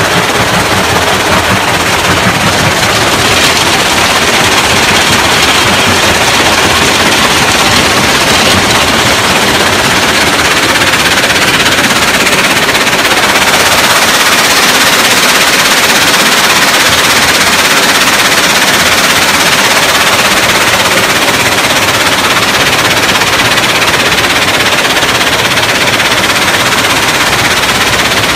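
Track-mounted rock jaw crusher plant running under load: a loud, steady, dense clatter of rock tumbling over steel and breaking.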